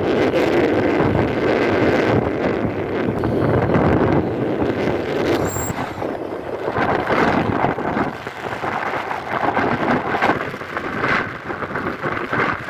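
Wind rushing over the microphone while moving along a road, mixed with the engines and tyres of traffic going by: auto-rickshaws, a truck and cars. The noise is heaviest for the first few seconds, then eases and rises and falls.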